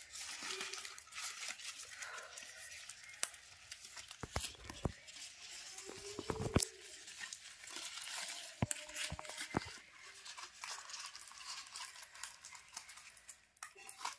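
Plastic wrapping and plastic tie strips rustling and crinkling as a plant sapling is wrapped and tied by hand, with scattered sharp snaps and clicks.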